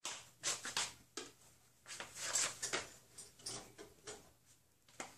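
Footsteps on a tile kitchen floor: about a dozen soft, irregular taps and scuffs.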